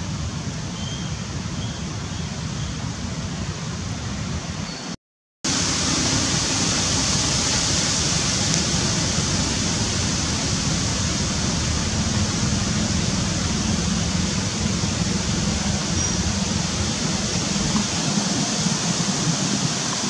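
Steady rushing outdoor background noise with no distinct events, a few faint short high chirps in the first two seconds. It drops out completely for about half a second some five seconds in, then returns a little louder.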